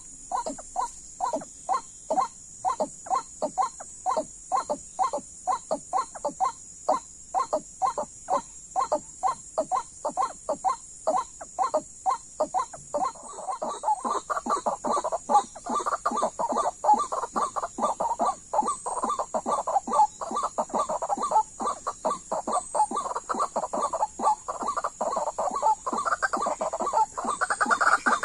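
White-breasted waterhen (ruak-ruak) calling: a long run of short, repeated notes at about three to four a second. The calling grows louder and more crowded about halfway through.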